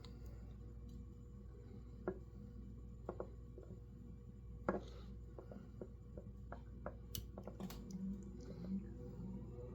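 Scattered light clicks and taps of hands working a fuel line onto a chainsaw carburetor, over a steady low hum. The taps are sharpest around two, three and five seconds in, with a quick cluster of small clicks later on.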